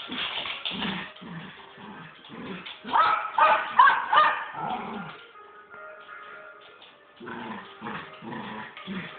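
Two small dogs play-fighting, with high yips and short barks. The loudest burst of calls comes about three to four and a half seconds in.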